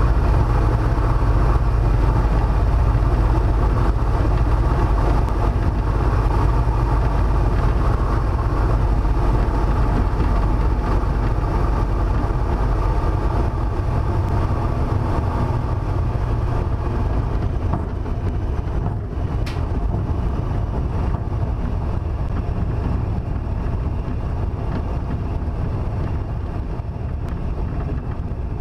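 Yak-50's nine-cylinder Vedeneyev M-14P radial engine running at low power, heard inside the cockpit with wind noise, during the rollout on the runway; the sound slowly fades as the aircraft slows. A single sharp click about two-thirds of the way through.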